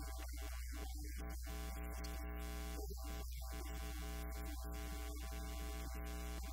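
Steady electrical mains hum and buzz with hiss from a faulty recording feed, with no speech coming through.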